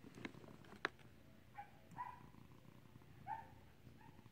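Two sharp clicks in the first second, then three short, faint cat chirps.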